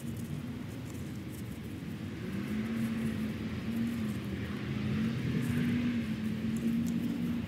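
A steady engine hum that grows louder over the second half, with faint light clicks and rustles.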